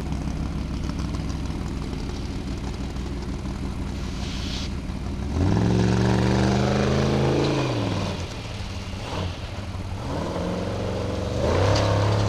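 Formula Offroad buggy's engine running, then revved hard about five seconds in, dropping back after a couple of seconds and revving up again near the end.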